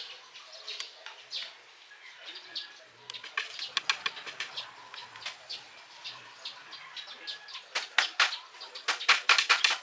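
Claw hammer driving nails into a wooden frame: a run of sharp taps that starts about three seconds in and turns faster and louder near the end.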